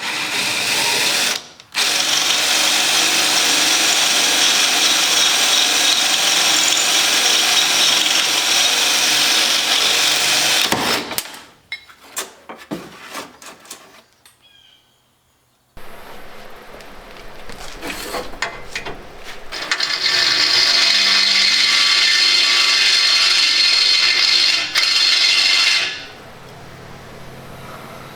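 Electric drill drilling out stripped Phillips screws on a Jeep CJ5 door hinge, metal on metal. It runs steadily for about ten seconds, stops for a few clicks and a quiet spell, then runs again for about six seconds near the end.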